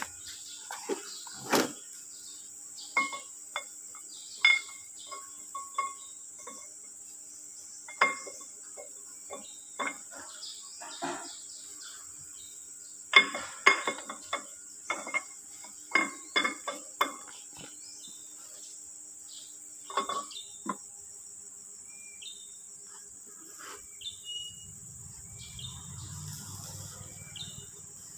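Irregular metal clinks and knocks as a steel camshaft is slid by hand into a Perkins diesel engine block, its lobes and journals catching on the block's bearing bores, each clink ringing briefly.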